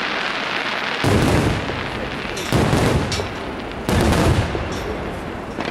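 Aerial firework shells bursting: three loud booms about a second and a half apart, each trailing off in a rumbling echo, over a steady crackling hiss.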